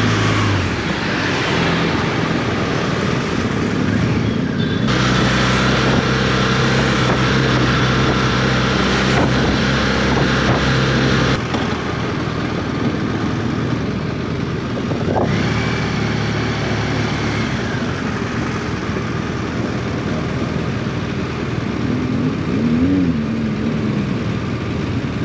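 Touring motorcycle's engine running under wind and road noise during a ride through town traffic; the engine note holds steady, then drops and the sound gets quieter a little before halfway through as the bike slows.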